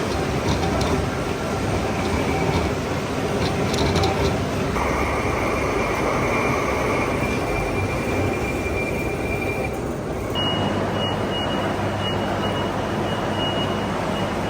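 Metalworking machinery running steadily in a machine shop, with a thin steady whine over the noise. The sound changes abruptly about five seconds in and again about ten seconds in, the whine higher in the last part.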